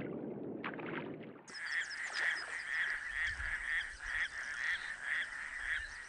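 Raucous toad calling: a steady run of duck-like quacks, about three a second, starting about a second and a half in.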